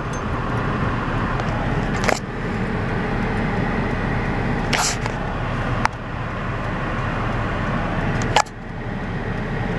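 Steady road and engine noise inside a moving car's cabin, broken by several brief sharp clicks.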